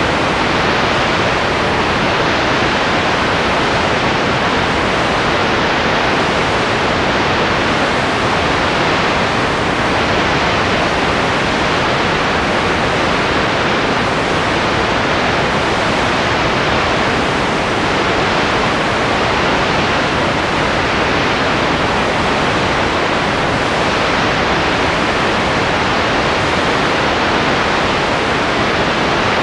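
Steady, even hiss of noise with no voices or other events in it.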